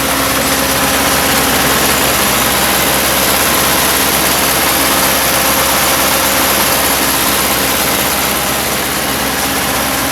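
Case 580C backhoe's engine running steadily at idle.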